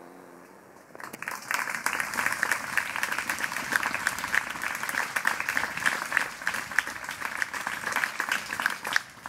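Audience applauding, dense clapping that starts about a second in and breaks off near the end.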